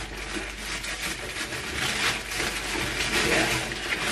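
Packaging rustling and crinkling unevenly as a parcel is unpacked by hand.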